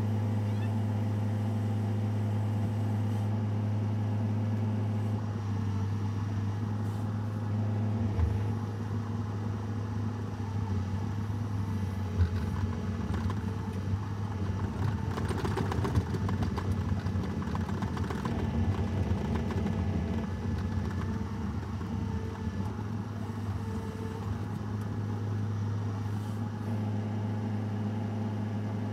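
An engine running steadily at an even speed, with scattered knocks and clicks of work between about 8 and 20 seconds in.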